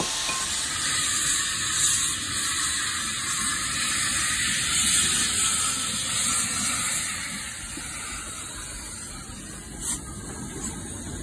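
Steady steam hiss from a model Britannia-class steam locomotive's sound, quieter after about seven seconds, with a single click near the end.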